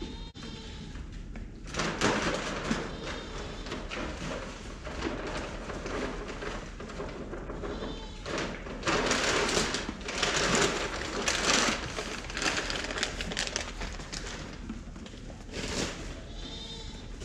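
Sheep bleating a few times, short calls near the start, about eight seconds in and near the end, among bursts of loud rustling and scraping noise.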